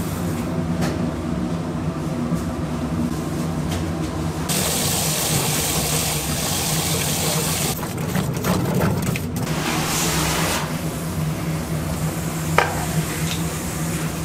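Large pot of greens boiling hard on the stove: steady bubbling and hissing over a low constant hum, louder for a few seconds from about four seconds in. A wire whisk briefly clatters in a steel bowl about eight seconds in, and a sharp click comes near the end.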